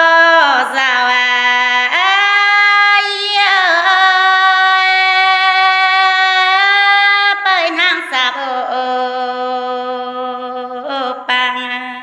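A woman singing a Red Dao (Dao Đỏ) folk song unaccompanied, in long drawn-out notes: about two seconds in her voice steps up and holds one note for about five seconds before falling back to lower notes.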